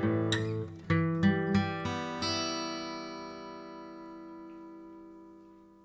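Acoustic guitar played with a wooden pick: a few picked notes, then a final chord struck a little over two seconds in that rings out and slowly fades away.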